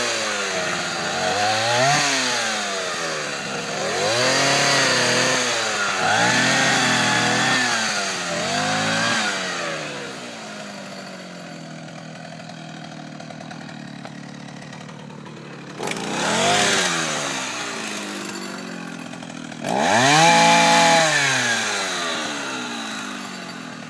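Partner two-stroke chainsaw revved in repeated bursts while cutting branches, its pitch rising and falling several times, then dropping back to idle for several seconds. Near the end it is throttled up twice more, the second time the loudest, before the revs slowly fall away.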